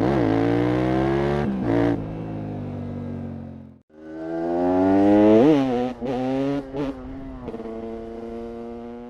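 TM SMR 300's single-cylinder 300cc two-stroke engine revving, its pitch rising and falling with quick throttle blips, in two passes split by a sudden cut about four seconds in.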